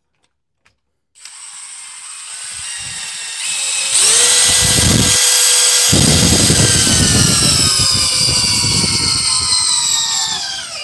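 DeWalt 20V cordless drill in low gear driving a large lag screw down a hole in a wooden post, its motor whining over the crunch of the threads cutting wood. It starts softly about a second in and gets much louder about four seconds in. Then its pitch slowly sinks as the motor slows under the rising load, and it stops suddenly near the end as the screw seats at peak torque.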